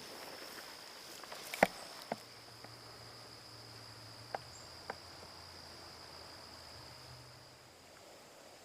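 Insects chirring steadily in a high, thin tone, with a few sharp clicks or snaps; the loudest comes about a second and a half in.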